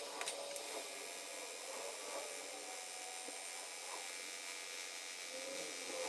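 TIG welding arc on stainless steel pipe: a steady soft hiss, with a couple of faint clicks just after the start.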